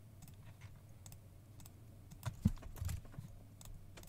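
Computer keyboard typing and clicks: scattered light key clicks, with a short flurry about two and a half seconds in, over a faint steady low hum.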